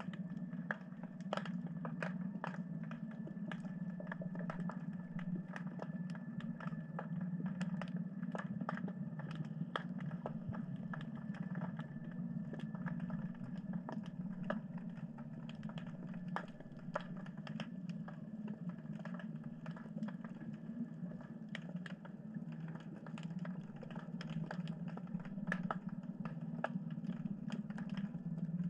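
Underwater ambience: a steady low hum overlaid with dense, irregular crackling clicks.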